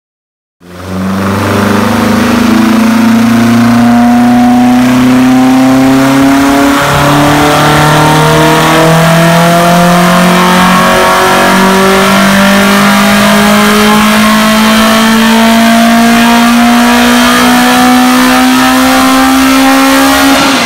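Vauxhall C20NE-based 2.1 8-valve four-cylinder rally engine on individual throttle bodies, running loud and steady with its pitch creeping slowly up. Near the end the revs fall away and the sound stops.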